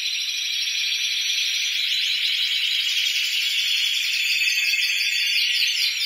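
Spanish timbrado canaries singing together in their cages: a steady chorus of fast, very metallic trills and rolls.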